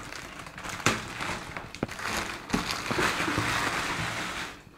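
Clear plastic wrapping crinkling and rustling around a packed speaker as it is handled in its box, with a few sharp clicks and knocks. The crinkling gets denser and louder near the end.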